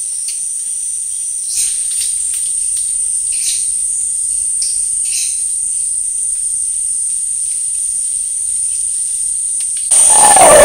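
Rainforest insects droning on one steady high-pitched note, with a few short chirps over it. Shortly before the end a loud, rough roar breaks in, typical of a howler monkey.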